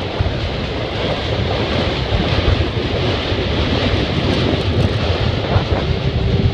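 Steady rumble of a moving vehicle heard from on board, with wind hissing across the microphone.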